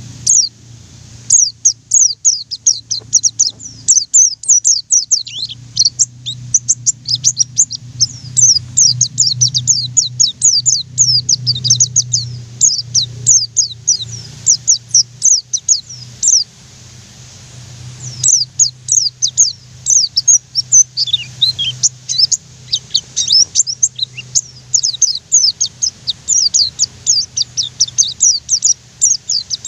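White-eye (pleci) singing a fast, rolling run of short, high, down-slurred chirps, with a pause of a couple of seconds about halfway through. A steady low hum sits beneath.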